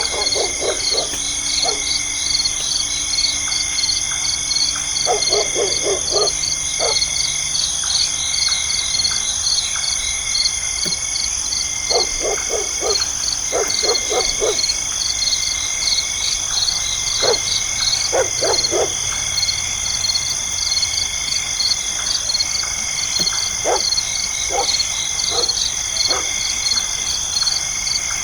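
Night insect chorus: several steady high-pitched drones, a fast pulsing chirp and a short note repeated about once a second. Runs of four to six short, lower calls come every few seconds.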